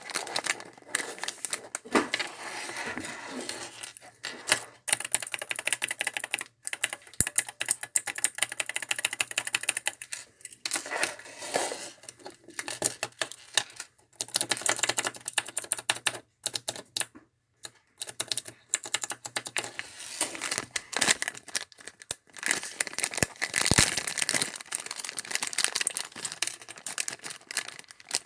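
Handheld clickers being clicked rapidly again and again: a dense run of sharp, keyboard-like clicks, broken by several short pauses as one clicker gives way to the next.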